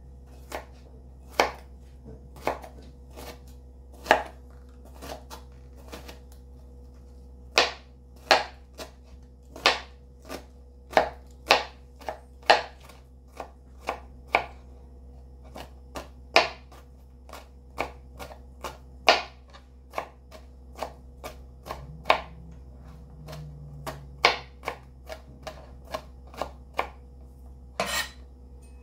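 Chef's knife chopping peeled garlic cloves on a plastic cutting board: irregular sharp knocks of the blade on the board, about one or two a second.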